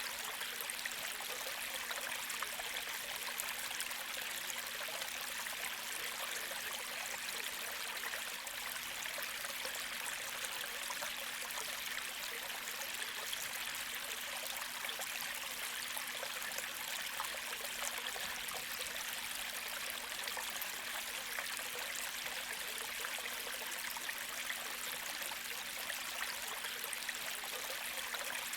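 Gentle creek flowing over stones, a steady babbling and trickling of shallow water.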